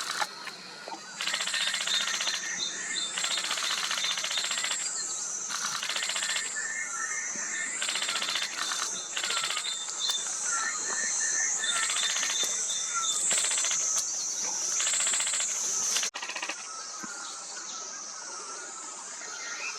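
Forest ambience: insects buzzing in long pulses that come and go, with a small bird calling in short series of quick chirps. The buzzing stops about sixteen seconds in, leaving softer chirps and hiss.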